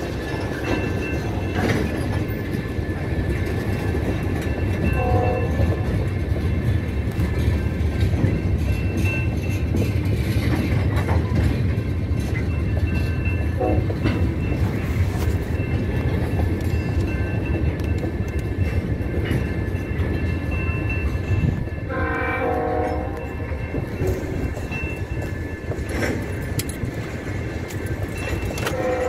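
A freight train of tank cars rolling steadily past: a continuous rumble of steel wheels on rail. Short pitched sounds break in a few times, the longest and loudest about 22 seconds in.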